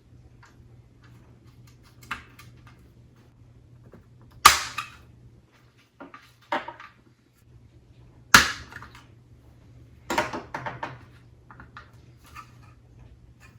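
Dash-light filters snapping into a Ford truck's plastic instrument-cluster backing panel: two loud, sharp snaps about four seconds apart, with lighter clicks and handling between them.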